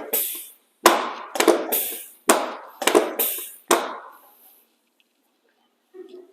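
A quick series of about seven sharp knocks, each ringing out briefly, as chiropractic thrusts are delivered along the back of a patient lying face down on the adjusting table. The knocks stop about four seconds in.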